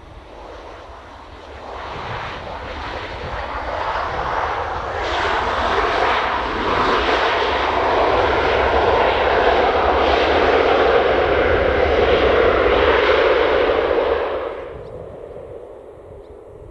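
Jet aircraft engine noise: a loud, even roar that builds over a few seconds, holds, then drops away quickly about fourteen seconds in.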